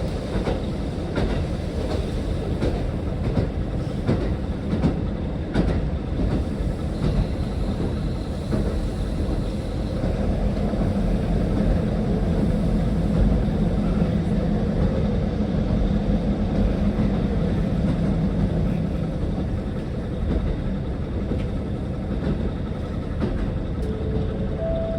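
Diesel railcar running along the track, heard from on board: a steady rumble with clicks from the rail joints. A low engine drone grows stronger from about ten seconds in and eases off near twenty seconds.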